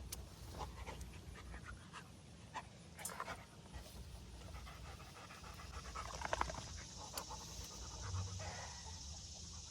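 A dog panting, with light irregular rustling and clicks.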